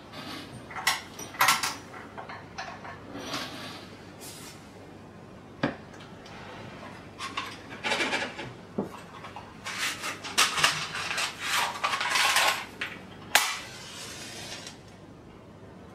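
Hands handling a Wilesco D24 toy steam engine and its small parts: irregular clinks, knocks and rattles of metal and glass, busier from about ten to thirteen seconds in, with one sharp knock a little after that.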